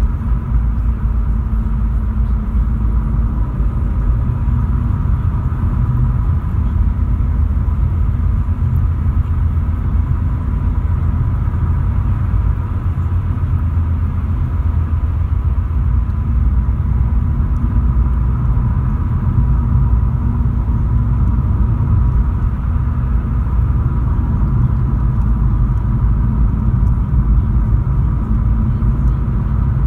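Volkswagen Polo driving at road speed, heard from inside the cabin: a steady low rumble of tyres and engine.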